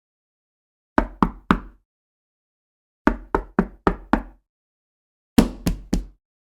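Knocking on a door: three quick knocks about a second in, then five knocks, then three more near the end, with dead silence between the groups.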